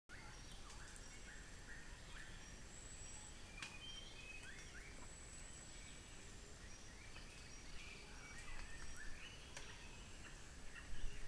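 Forest birds calling: many short chirps and sliding whistled notes, some repeated, over a faint steady hiss, with a few sharp clicks and a brief louder noise near the end.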